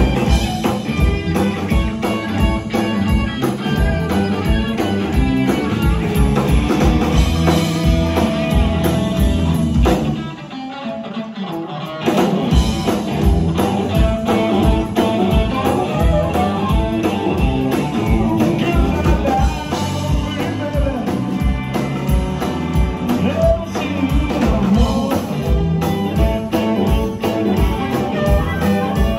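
Live blues band playing: electric guitars, bass and drum kit on a steady beat, with a harmonica played into the vocal mic. The bass and drums drop out for about two seconds just before the middle, then the full band comes back in.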